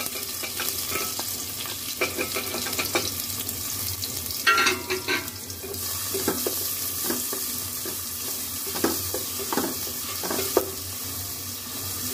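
Sliced onions sizzling in hot oil in an aluminium pot, stirred with a slotted spatula that scrapes and taps against the pot. The loudest scrape comes about four and a half seconds in.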